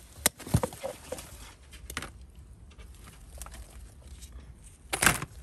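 Handling noise of picking eggplants off the plant: rustling of leaves and stems and sharp clicks, with a louder handling noise near the end.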